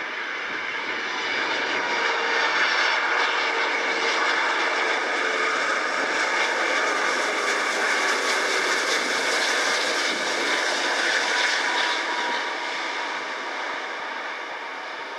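Airbus A330 jet airliner's engines on final approach: a rushing roar with a steady whine on top. It grows louder about a second and a half in as the aircraft passes close by, then fades over the last few seconds as it flares over the runway.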